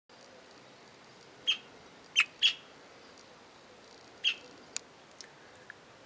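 Budgerigars giving short, sharp chirps: one, then a quick pair, then another, followed by a few fainter ticks.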